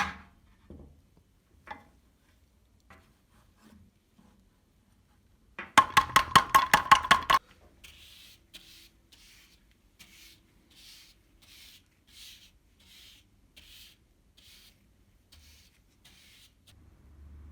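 Hand work on metal parts: a short run of quick, loud, ringing scraping strokes, then a slow even series of hissing brush or sanding strokes.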